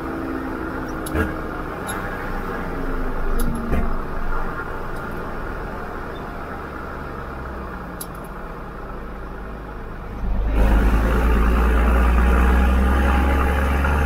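Diesel engines of heavy farm machinery running: a steady drone with a slowly falling tone and a few sharp clicks and knocks. About ten seconds in it changes abruptly to a louder, deeper engine rumble.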